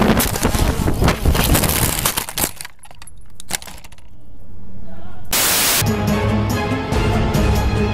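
A crash: a dense run of cracking and breaking impacts over rushing noise, dying away after about two and a half seconds into a rising swell and a short hiss. Background music with a steady beat comes in near the end.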